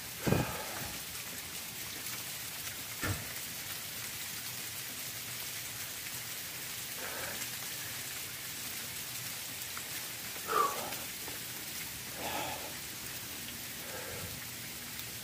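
Steady, even hiss of heavy wet snow and sleet coming down and pattering on surfaces. A few brief separate sounds stand out over it, the loudest just after the start and about ten seconds in.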